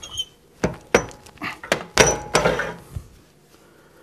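A string of sharp metal clunks and knocks from a wood lathe's tailstock being shifted and handled on the bed. There are about eight of them over three seconds, the loudest about two seconds in with a short ring after it.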